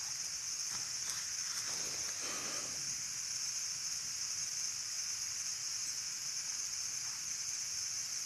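Steady high-pitched chorus of insects. Faint rustling of twigs and sticks being handled in the first few seconds.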